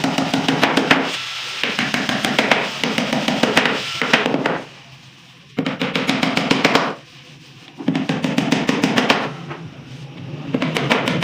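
Background music with a fast drum beat, dropping out briefly twice.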